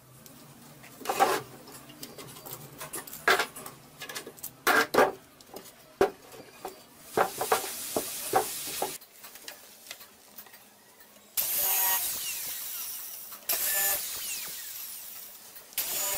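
Plywood parts knocking and clattering as a small plywood box is handled, followed by a cordless drill running in three bursts, about two seconds, one second and one second long, as it bores into the plywood.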